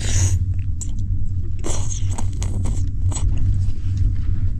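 A person slurping up cold-skin noodles (liangpi) and chewing them, with noisy slurps right at the start and about two seconds in. A steady low rumble from the moving train runs underneath.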